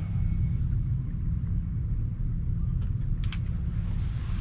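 A steady low rumble, with a quick pair of sharp clicks about three seconds in from the spinning reel as the rod is brought up after a cast.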